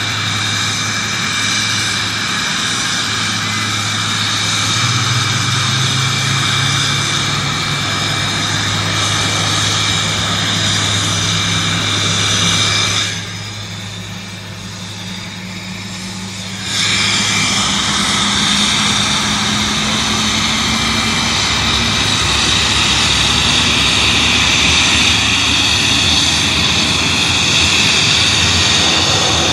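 McDonnell Douglas MD-11 freighter's jet engines running, a steady high whine and hiss over a low hum. One low tone slowly climbs in pitch as an engine spools up during start. About halfway through, the sound briefly drops quieter and duller for a few seconds.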